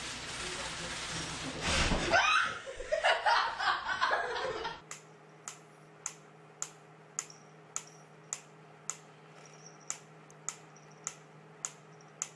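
For the first few seconds, loud uneven noise with laughter. Then a wooden pyramid mechanical metronome ticking steadily, a little under two ticks a second.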